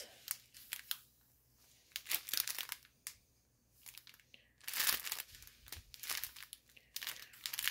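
Sealed plastic strip packets of diamond painting drills crinkling as they are handled, in irregular bursts of rustling with short pauses between them.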